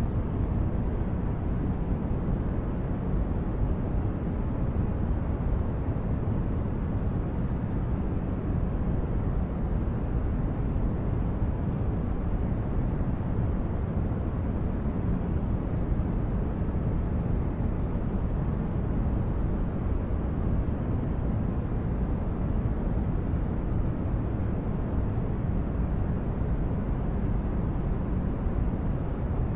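Steady, deep rumbling noise of a sci-fi spaceship ambience: a low engine-like drone with a soft hiss above it, unchanging throughout.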